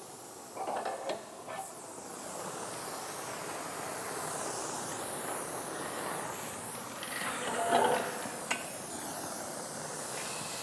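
Oxyacetylene welding torch burning with a steady hissing neutral flame, growing a little louder about two seconds in, with a few brief handling noises about a second in and near eight seconds.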